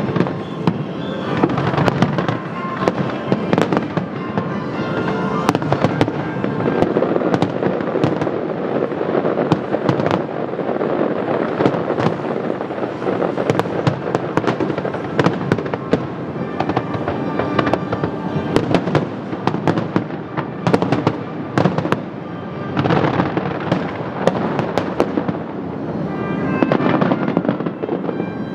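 A dense, continuous fireworks barrage: many shells bursting and crackling with no break, over music playing along with the show.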